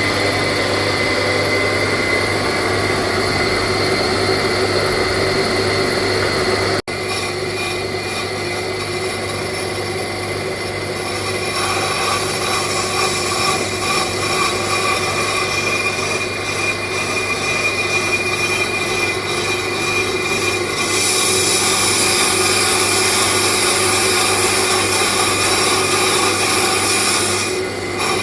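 Brake lathe running steadily as it machines a Honda Accord front brake rotor: a constant motor hum with a high ringing tone from the cutting tool on the rotor. It breaks off briefly about a quarter of the way in, and a louder hiss comes in about three quarters of the way through.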